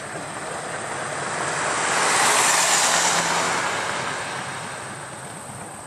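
A vehicle passing by: a rushing sound that swells to a peak about halfway through and then fades away.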